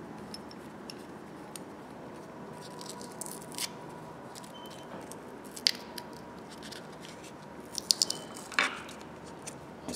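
Masking tape being picked and peeled off a small red-painted pipe-wrench part by hand: faint crinkling with scattered sharp ticks, the loudest a little before the middle and near the end.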